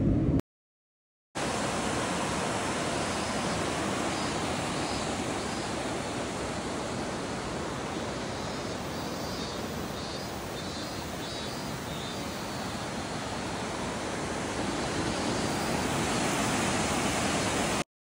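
Steady rushing of a river flowing over rocks, beginning abruptly about a second in, with faint high chirps over it in the middle.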